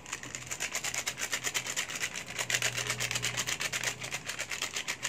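A foil seasoning sachet of Royco being shaken over a wok to pour out the powder, crinkling in a quick, even rhythm of several shakes a second.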